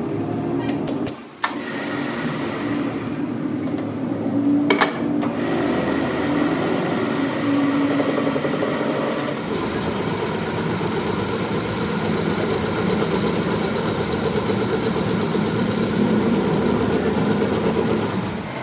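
Metal lathe running steadily, with a few sharp clicks in the first five seconds. About halfway the sound changes abruptly to a steadier running with a high whine.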